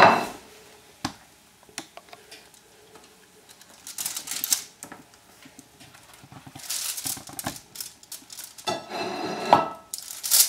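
A ceramic plate set down with a knock at the start, then a few light clicks and several short spells of crinkling and rustling from the aluminium foil lining a baking tray as baked burritos are lifted off it by hand.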